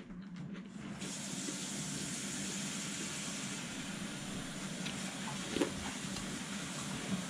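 Kitchen tap turned on about a second in, water running steadily into the sink. A spoon knocks once against a ceramic cereal bowl a little past halfway.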